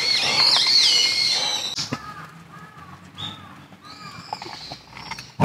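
Wild forest birds calling: high whistled gliding notes over a loud rushing noise in the first two seconds, then three short arching calls about a second apart.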